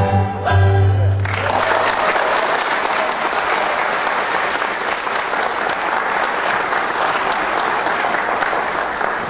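The dance music ends on a held final note about a second in, then an audience applauds.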